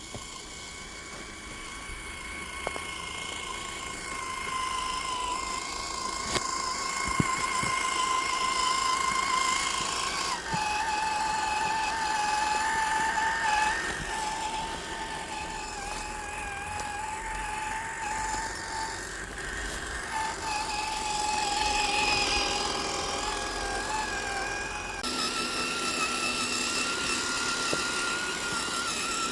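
Electric motor and gear whine of an Axial SCX10 III RC crawler as it drives, a steady high whine whose pitch drifts with throttle and jumps abruptly about a third of the way in and again near the end, with a few light ticks.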